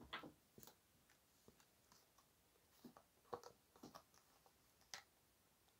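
Near silence with a few faint soft clicks and taps of an oracle card deck being handled and shuffled by hand, a little busier around the middle.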